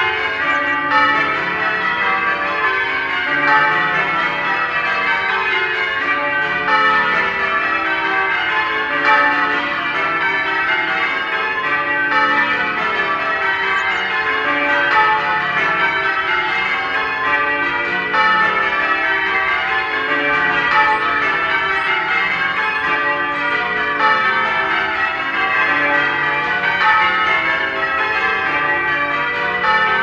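The bells of St. Philip's Cathedral, Birmingham, ringing in changes: a continuous, even stream of overlapping bell strikes following one another in quick succession.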